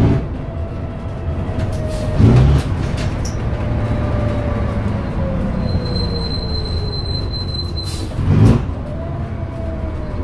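Bristol RELL6L bus's Leyland 0.680 straight-six diesel heard from inside the saloon, dropping from a loud pull to a lower run as the driver eases off. A whine falls slowly in pitch as the bus slows, and two short loud surges come, one about two seconds in and one near the end.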